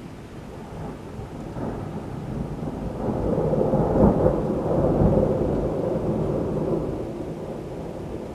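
A long roll of thunder that builds over a couple of seconds, peaks about halfway through and rumbles away near the end, over steady rain.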